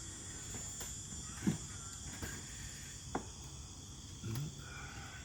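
Crickets chirring steadily, with two sharp knocks about a second and a half and three seconds in from the parts being handled during the fuel pump work.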